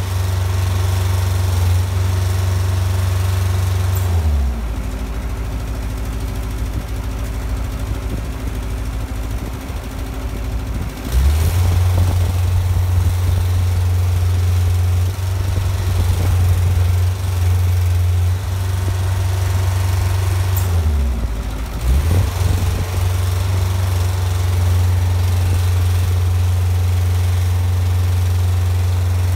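Container side lifter's engine running steadily. Its speed drops about four seconds in, picks up again around eleven seconds, and dips briefly once more near twenty-one seconds.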